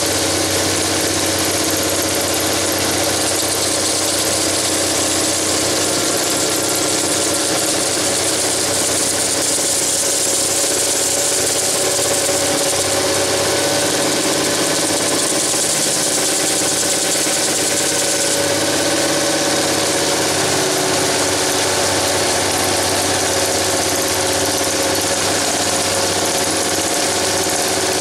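Homemade drill-driven belt grinder running steadily: the electric drill's motor whines while the knife blade is held against the moving abrasive belt, giving a steady grinding hiss that is brighter for a stretch in the middle.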